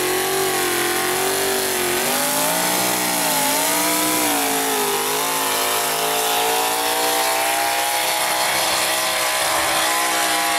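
Pulling pickup truck's engine running hard under load as it drags a weight-transfer sled, its pitch dipping and rising several times, then holding and slowly climbing.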